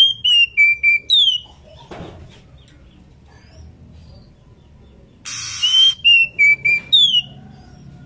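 Female oriental magpie-robin calling, as a bird in breeding condition calls for a mate: a short whistled phrase of falling notes ending in a downward slur, given twice, at the start and again about five and a half seconds in. A short hiss comes just before the second phrase.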